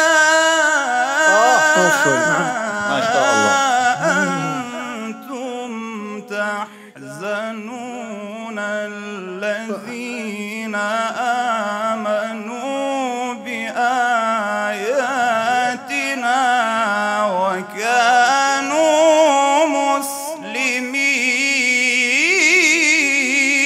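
Quran recitation: a reciter's voice chanting in long, drawn-out melodic lines that slowly rise and fall in pitch, with two short breaks.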